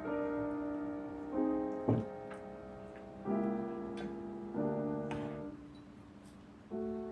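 Slow background piano music: sustained chords, a new one struck every second or two and fading away, with a couple of short faint knocks.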